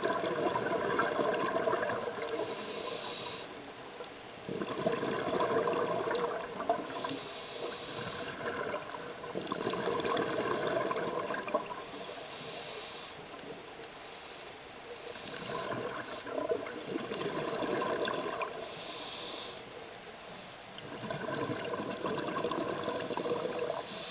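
Scuba diver breathing through a regulator, heard through the camera's underwater housing: regulator hiss and bubbly bursts of exhaled air come round in a slow breathing cycle of about five or six seconds.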